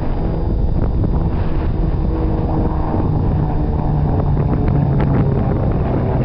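Drone of a Beechcraft Baron B55's twin piston engines and propellers as it flies past, half buried under heavy wind buffeting on the microphone; the engine note is strongest in the second half.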